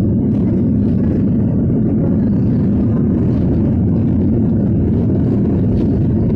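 Steady low rumble of a city bus heard from inside the passenger cabin, with a few faint clicks.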